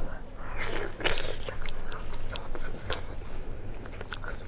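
A person biting into crunchy food close to the microphone, then chewing it with scattered crackling crunches.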